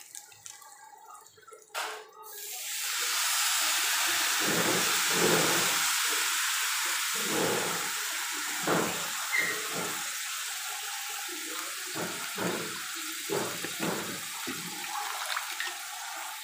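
Wet fenugreek (methi) leaves, lifted straight from their washing water, going into a hot kadhai: a loud, steady sizzle sets in about two and a half seconds in, just after a sharp knock, with rustling of the leaves through it.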